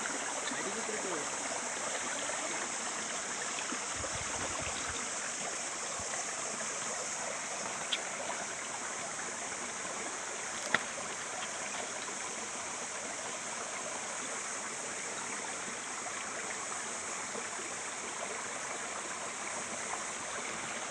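Shallow stream flowing over rocks: a steady rush of running water, with two brief sharp clicks about eight and eleven seconds in.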